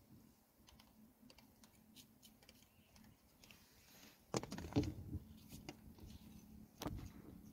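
Faint tapping and scraping of a baby macaque's hands and feet on a car's bonnet and windscreen, heard from inside the car, with a few louder thumps about four seconds in and another sharp one near the end as it shifts to grab the food. A low steady hum comes in with the first thumps.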